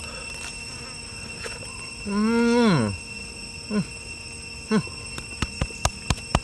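A man's long drawn-out vocal sound while chewing, about two seconds in, dropping in pitch at the end, then a few short grunts. From about five seconds in there is a quick run of dull thumps as he beats his fist on his chest.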